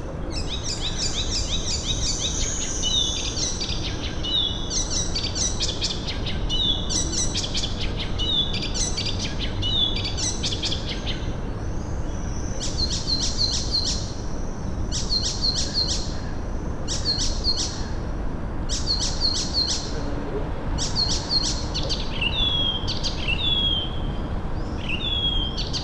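Small songbirds singing: short, quick phrases of high notes repeated about once a second, with slurred downward whistles near the end, over a steady low background noise.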